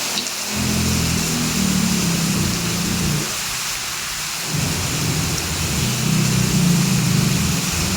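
Heavy rain falling steadily, with two long low rumbles of thunder, one near the start and one through the second half.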